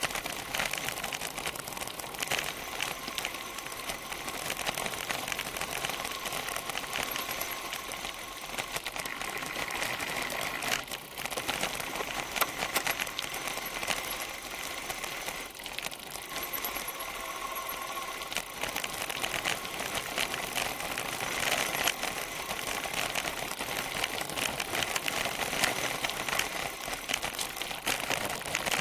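Bicycle rolling quickly downhill on a gravel track: tyres crackling over loose gravel, with rapid clicking and rattling from the bike and its rear-mounted camera.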